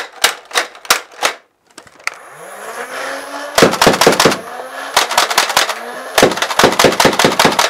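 Dart Zone Savage Spin foam-dart blaster: a run of regular mechanical clicks, about three a second, as the drum is cycled by hand. Then the battery-driven flywheel motor spins up with a rising whine, and three quick clusters of sharp clacks follow as darts are fired, the motor whine sagging with the shots and winding down near the end.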